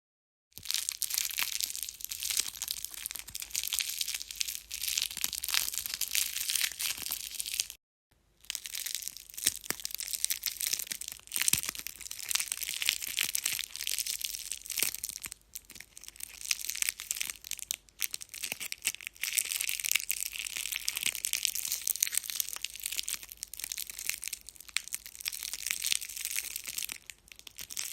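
Tape being crumpled in the hands, a dense, continuous crackling and crinkling that stops briefly about eight seconds in and then resumes.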